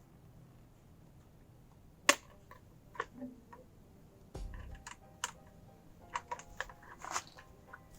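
Irregular sharp clicks and light taps of hand tools and hard parts being handled, the loudest about two seconds in and a quick cluster near the end, typical of an e-bike motor's top cover being fitted and its bolts located.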